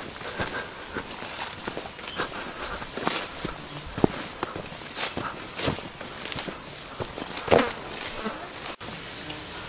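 Steady high-pitched insect chorus, with footsteps and scattered crunches of brush underfoot along an overgrown track.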